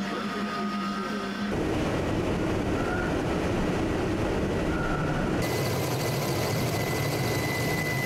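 Steady rumble and rushing wash of warships under way on a choppy sea, with wind noise. The sound changes abruptly about a second and a half in, and again past five seconds.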